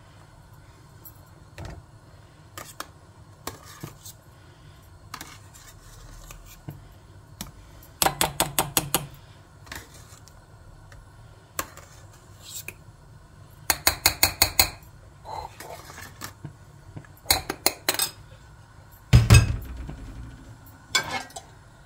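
A metal spoon clinks and scrapes against a stainless steel pot as foam is skimmed off boiling chickpeas. There are three bursts of rapid taps, then a duller knock near the end.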